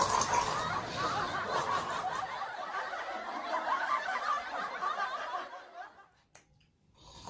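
Quiet human laughter, dying away about six seconds in.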